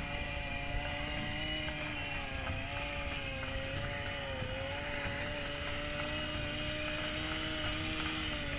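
Small two-stroke petrol engine of a 1/5-scale RC car running steadily at part throttle, its pitch dipping briefly twice as the throttle is eased.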